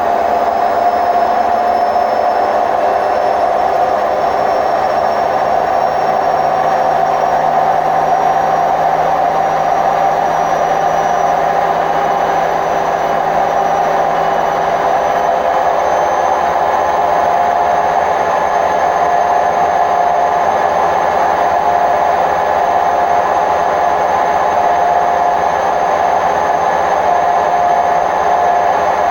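Hotpoint WMF760 washing machine on its spin program, the drum turning fast with a loud, steady rumbling roar and a whine that holds at one pitch. The noise is the sign of worn drum bearings.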